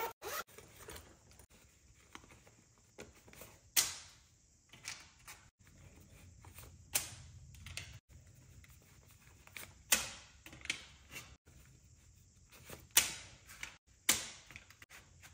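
Paper banknotes and a leather zipper pouch being handled on a hard desk: a crisp paper rustle or snap about every three seconds as bills are laid into a cash organizer, with soft rustling in between.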